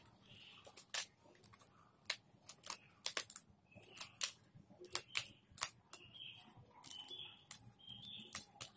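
Irregular sharp clicks and snaps of 3D puzzle sheets being handled, as pieces are pressed out of their frames and the sheets tap together, about a dozen in all.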